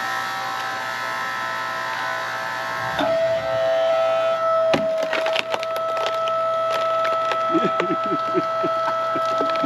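Hydraulic log splitter running with a steady whine that shifts pitch and grows louder about three seconds in, then the log cracking and splintering in a run of sharp snaps from about five seconds on as it is forced apart.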